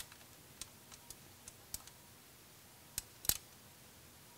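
Faint, scattered clicks and taps of small button-head bolts being threaded by hand into an aluminium radiator brace, with two sharper clicks about three seconds in.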